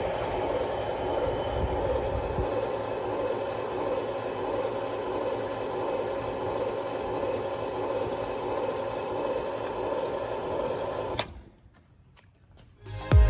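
FAMAD DDVC roller glue applicator running: its 0.37 kW electric motor and rubber rollers turn with a steady hum. In the second half there are light regular ticks, about three every two seconds. The machine is switched off about 11 seconds in and the sound cuts off suddenly.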